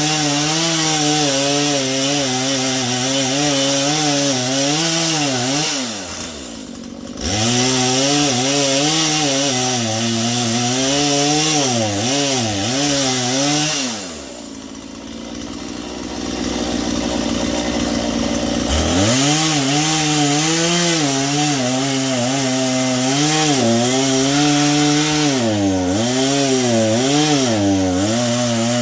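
Two-stroke chainsaw cutting through a log, its engine pitch wavering and sagging as the chain bites, with a blunt chain in need of sharpening. It drops back to idle briefly about six seconds in and again for several seconds around the middle, then revs up and cuts again.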